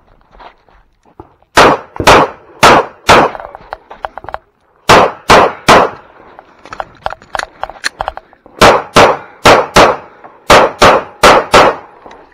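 Handgun shots fired in quick strings of three or four, about fifteen shots in all, each string with roughly half a second or less between shots and pauses of a second or more between strings.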